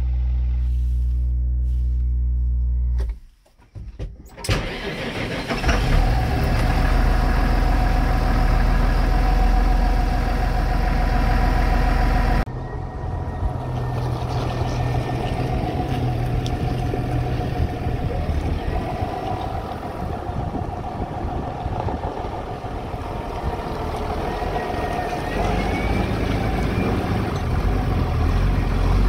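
A Massey Ferguson 6480 tractor's six-cylinder diesel engine being started. A steady low hum lasts about three seconds and breaks off. About four seconds in, the engine catches and keeps running.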